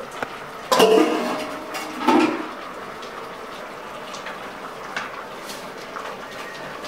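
Aluminium cooking-pot lid clanging twice as it is lifted off and set aside, each clang short and metallic with a brief ring, about a second and a half apart. After that there are faint scrapes and ticks of a wooden spatula stirring the simmering greens in the pot.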